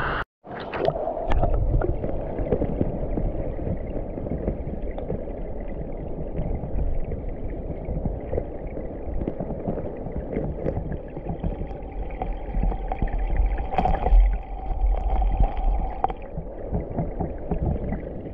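Creek water flowing, heard from under the surface: a muffled, churning rush scattered with small clicks and ticks. A brief drop to silence comes just after the start, and a deeper rumble swells up from about 12 to 16 seconds.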